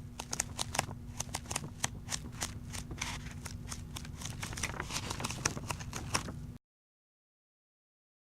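Rapid, irregular sharp taps or clicks, several a second, over a steady low hum, cutting off suddenly about six and a half seconds in and followed by dead silence.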